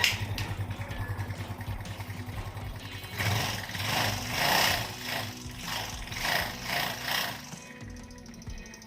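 Yamaha Mio Sporty's small four-stroke single-cylinder scooter engine running with a fast, even idle, then revved in about six short throttle blips before settling back down.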